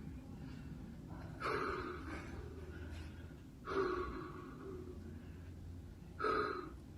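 A person's breath heard three times, evenly spaced: breathy exhales like sighs, over a faint steady low hum.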